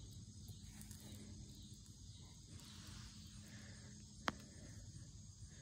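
Faint outdoor background: a low rumble and a steady high hiss, with one sharp click about four seconds in.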